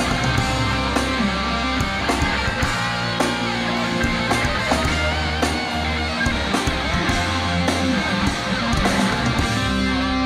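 Live hardcore band playing, electric guitars to the fore over bass and a steady run of sharp drum and cymbal hits.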